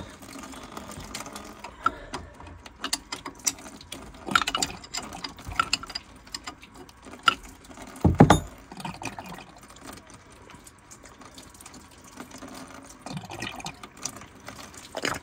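Wrench working the 11/16 drain plug loose on a PCM marine engine's exhaust manifold: scattered metallic clicks and taps, with one louder knock about eight seconds in. Water begins to trickle out of the manifold as the plug opens, draining it for winter.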